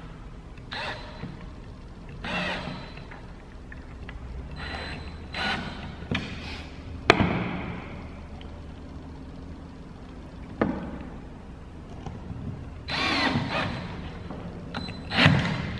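Cordless drill driving screws into plywood in several short runs, each a second or less. A sharp knock about seven seconds in, and a softer one a few seconds later.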